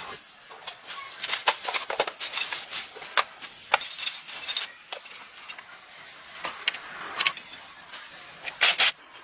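Irregular series of sharp clicks and knocks, thickest in the first half, with a louder double knock near the end.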